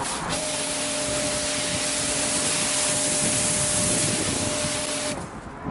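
Pressure washer spraying a jet of water across a car bonnet: a steady hiss with a constant hum from the running pump underneath, cutting off suddenly near the end.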